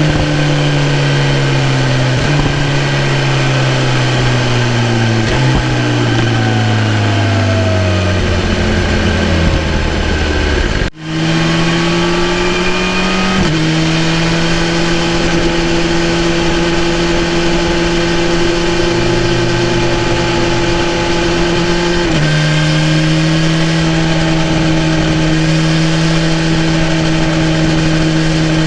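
2018 BMW S1000RR inline-four engine on the move: engine speed falls for about ten seconds, broken by two short upward jumps in pitch like downshifts. After a brief dropout the engine holds a steady speed, with two small steps down in pitch like upshifts.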